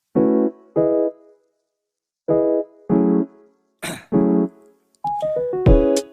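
Piano chords played as short separate stabs with pauses between them, about six in all, then a quicker run of notes near the end.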